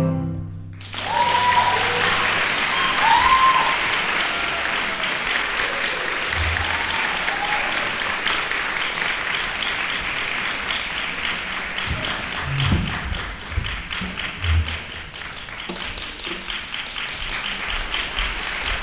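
Audience applauding as the cello piece ends, the clapping breaking out about a second in, with a few cheering voices at first.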